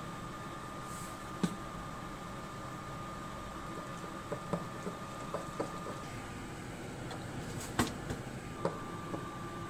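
Light scattered clicks and taps, then one sharp, louder click as the lever of a DeLonghi toaster is pushed down to lower the bread, over a steady faint hum.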